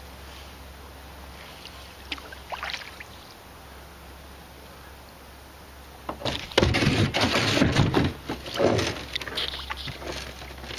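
Kayak on calm water: a quiet stretch with a few faint drips and clicks, then from about six seconds in a few seconds of loud, irregular splashing, knocking and rubbing from the paddle and hull.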